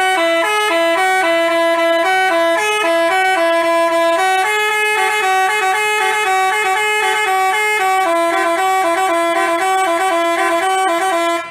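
Basuri telolet horn, a multi-tone bus horn, playing a tune of quick changing notes without a break, cutting off abruptly near the end.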